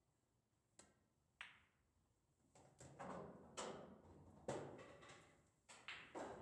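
Pool balls clacking on a pocket-billiards table: a couple of sharp single clicks, then a run of louder knocks with short ringing tails, as balls strike each other and the rails.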